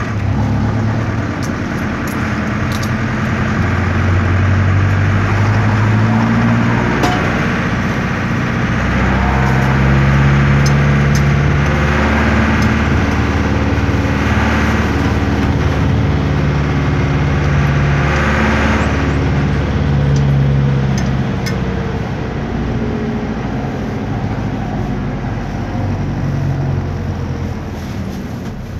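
Air-cooled Deutz F4L912 four-cylinder diesel of an Otokar M-2000 minibus, heard loud inside the cabin while driving, its pitch rising and falling as it pulls and eases through the gears. It settles somewhat quieter near the end.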